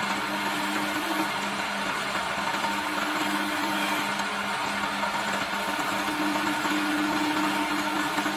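Electric wood lathe running at a steady speed, its motor humming, while a hand-held chisel cuts along the spinning wooden spindle with a continuous hiss of shaving.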